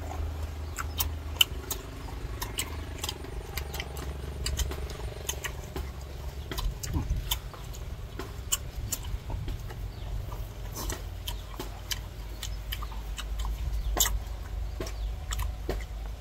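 Close-up chewing of crisp raw green mango slices: many sharp, irregular crunches, with a steady low rumble underneath.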